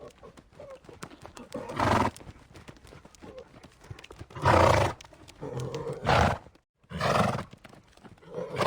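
Horse neighing in about five short, loud calls, with faint hoof clip-clops between them.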